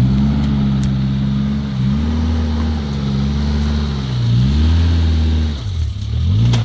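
Off-road 4x4's engine running under load, its revs rising and dipping several times as the throttle is worked over rough ground, falling off and wavering near the end.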